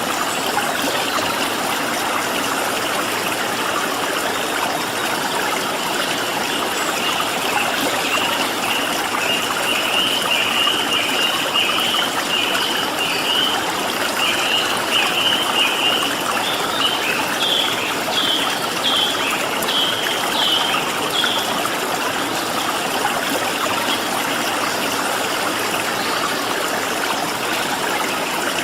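Stream water running steadily. A bird sings a long run of quick, high, chirping notes over it from about a quarter of the way in, the later notes rising, until about three quarters through.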